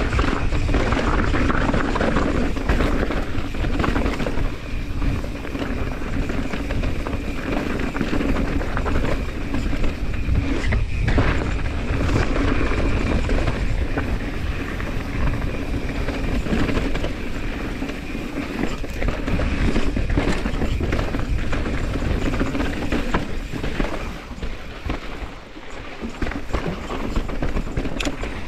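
Mountain bike rolling fast down rocky dirt singletrack: tyres crunching over dirt and stones and the bike rattling over bumps, with wind buffeting the camera's microphone. Briefly quieter near the end.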